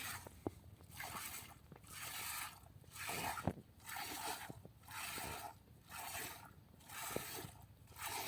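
Rhythmic scraping swishes, about one a second, each lasting about half a second.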